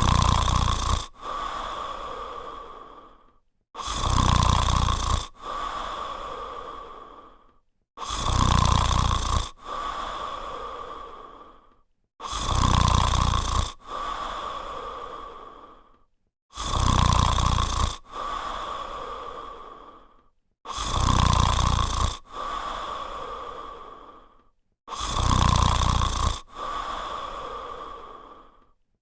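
French spaniel snoring in its sleep, in a steady rhythm about every four seconds, seven times over. Each breath is a loud snore with a low rumble, followed by a softer breath that fades away before a brief pause.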